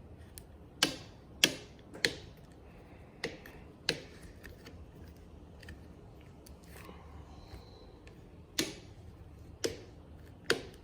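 Sharp, irregular clicks and knocks, about eight in all, from a handlebar end piece being worked, twisted and tugged loose from a motorcycle handlebar after its bolt has been removed.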